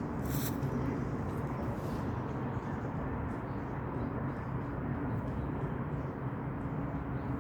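Steady low outdoor rumble with a faint hum and a few light ticks.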